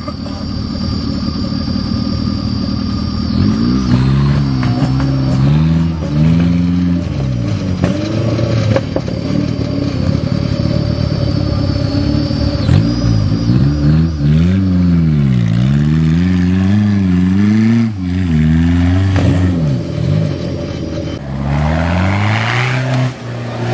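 An off-road vehicle's engine revving up and down over and over, its pitch rising and falling every second or two as it works across uneven ground. Near the end comes a short stretch of rushing noise.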